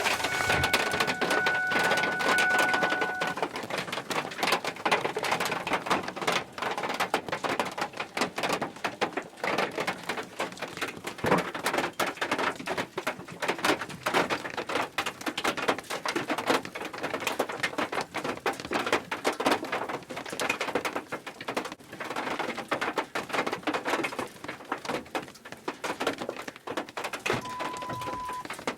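Heavy storm rain pattering densely and hard on a surface, many drops a second without let-up. A steady electronic tone sounds for the first few seconds, and a short beep comes near the end.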